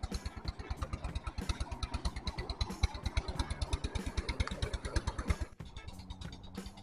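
Motorcycle engine running with a fast, even pulse, which cuts off suddenly about five and a half seconds in. Quieter music with held tones follows.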